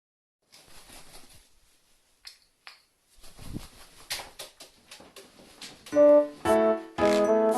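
Faint scattered short hisses and knocks, then piano music starts about six seconds in with loud chords and plays on.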